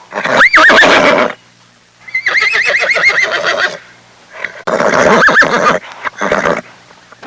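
Horse whinnying three times, the middle call a long shaking neigh, with a couple of short knocks near the end.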